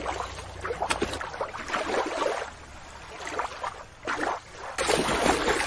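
Water splashing and lapping, a noisy wash that changes character twice as the scene switches.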